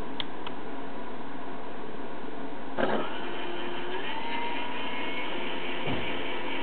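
An RC model's electric motor is given throttle: after a knock about three seconds in, it spins up with a whine that rises in pitch and then holds steady, over a constant hiss. A couple of light clicks come at the start and a low thump near the end.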